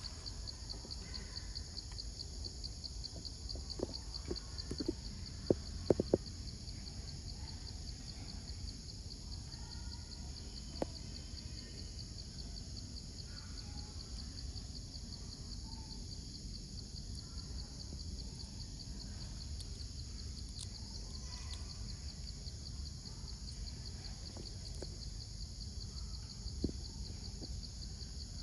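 Jungle ambience: a steady high-pitched buzzing drone over a low rumble, with a few sharp clicks, most of them bunched about four to six seconds in.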